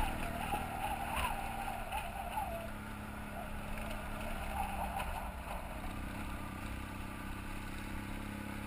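BMW F800GS parallel-twin motorcycle engine running steadily under way, heard from the bike. A wavering higher tone rides over it for the first few seconds.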